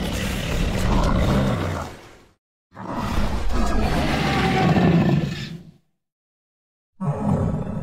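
Giant monster roar sound effects: two long, deep roars of about two and a half and three seconds with a short silence between, and a third roar starting near the end.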